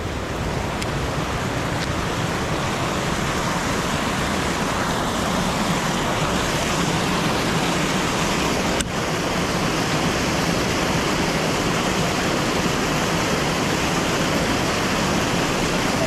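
Waterfall spilling over a low river dam: a steady rush of whitewater pouring over the rocks at its foot.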